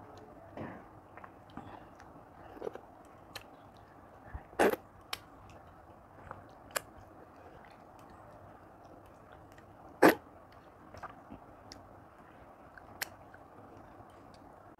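Close-up chewing of a person eating rice and chicken curry by hand, with scattered sharp clicks, two of them much louder than the rest and about five seconds apart.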